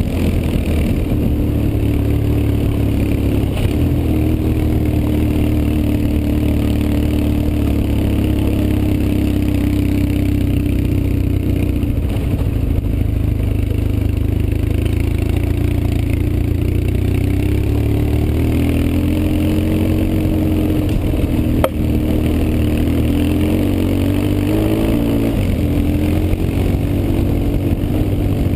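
BMW R 1150 GS flat-twin boxer engine running steadily at low, even revs, its pitch sagging a little around the middle and picking up again. A single sharp click about two-thirds of the way through.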